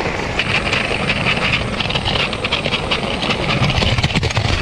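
A toy LEGO train's motor whirring as it runs along plastic track, with steady clicking and rattling from the wheels passing over the rail joints.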